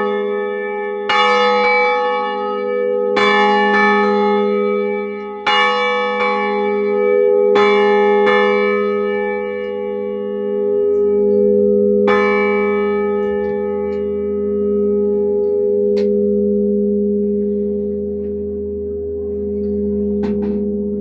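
Church bells of a five-bell ring in A-flat (Giorgio Pruneri bells, 1907) struck close up in the bell chamber, with loud strokes about every two seconds at first, then a few sparser, lighter strokes. The bells' deep hum rings on throughout.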